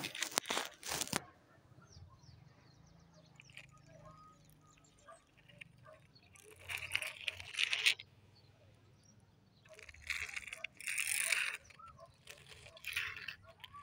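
Small plastic toy vehicles handled and pushed across a concrete floor: plastic wheels and bodies scraping and rattling in a few short bursts, with quiet between them.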